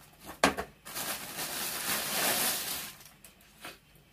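Packaging being handled: a sharp knock about half a second in, then about two seconds of steady crinkling rustle, and a small click near the end.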